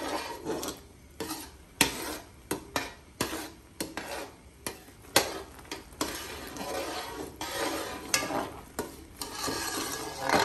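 A long-handled metal slotted spoon stirring thick, foaming jaggery syrup in a large aluminium pot, with irregular clicks and knocks as it strikes and scrapes the pot's sides. The syrup bubbles and hisses on a high flame underneath.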